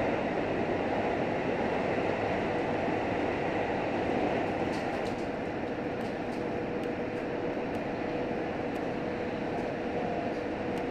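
JR Hokkaido H100 diesel-electric railcar running at speed, heard inside the passenger cabin: a steady rumble and hiss of running noise with a thin steady whine, and faint light ticks in the second half.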